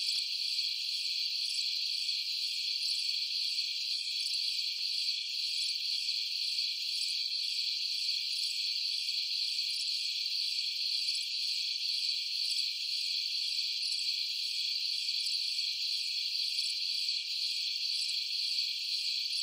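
Insects trilling in a steady, high-pitched, unbroken drone, with a fainter higher chirp repeating at a regular pace above it.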